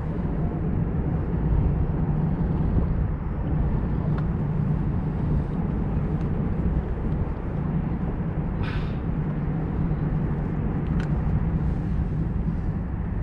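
A boat motor running steadily under way, a low even drone with rushing noise, and a brief hiss about nine seconds in.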